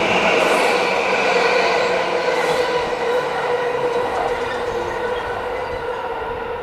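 Yamanote Line E235-series electric commuter train running along the station platform, its steady whine and rail noise slowly fading.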